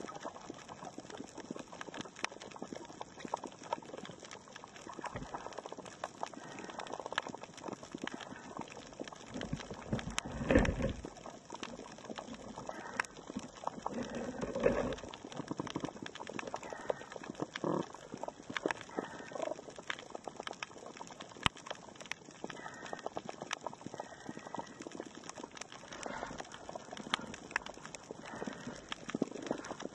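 Reef heard underwater: a steady crackle of many sharp clicks, typical of snapping shrimp on a coral reef. Louder low rumbles come about ten seconds in and again near fifteen seconds.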